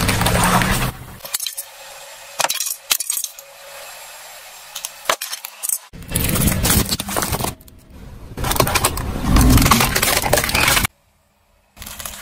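A car tyre slowly rolling over and crushing plastic cups and other small objects, several times in a row: crackling and snapping plastic, crunching and splattering of liquid, each crush lasting a second or two, with quieter gaps of sharp clicks between. The sound cuts off suddenly about eleven seconds in, then a short, quieter crush follows near the end.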